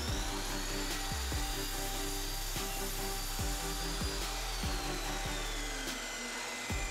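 Resanta TP-255PL sliding miter saw's motor spinning up with a rising whine and cutting through a thin wooden strip, then winding down with a falling whine from about four seconds in. Background music plays throughout.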